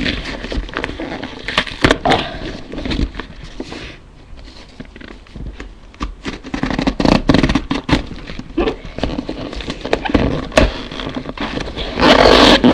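Brown paper wrapping and a cardboard box being handled and pulled open by hand: irregular crinkling, scraping and tapping, with a louder stretch of rustling near the end.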